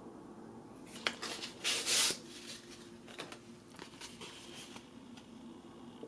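Stiff paper card stock handled in the fingers: a sharp click about a second in, a louder dry rustle and slide of the card around two seconds, then lighter rustles and taps.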